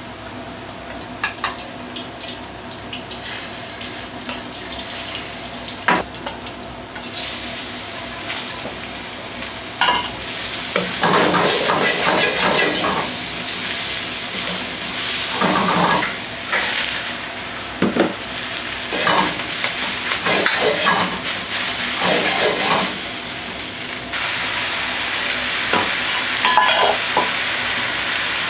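Food stir-frying in a hot pan. There are scattered clinks and knocks at first; about seven seconds in a loud sizzle sets in and continues, with repeated clatter of a utensil stirring and scraping the pan.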